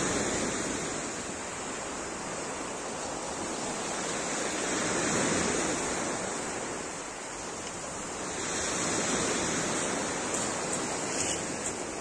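Sea waves breaking and washing up a pebble beach, rising and falling as each wave comes in. Near the end come a few light crunching steps on the pebbles.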